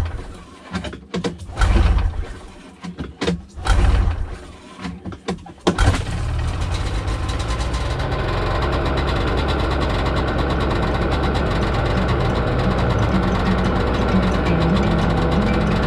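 Ski-Doo Tundra snowmobile engine being started: a few short cranking bursts about two seconds apart, then it catches about six seconds in and settles into a steady idle.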